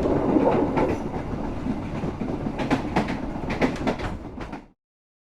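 A train running on the rails: a steady low rumble with irregular sharp clacks of the wheels over the rail joints. It fades and then cuts off abruptly about four and a half seconds in.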